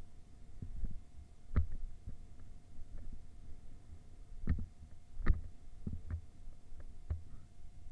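Mountain bike riding down a bumpy dirt trail, heard through a helmet-mounted camera: a low rumble broken by sharp knocks and clatters as the bike hits bumps, the loudest about five seconds in.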